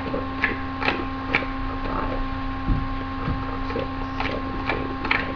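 Playing cards being counted off one at a time, short soft clicks about half a second apart in two runs, over a steady electrical hum.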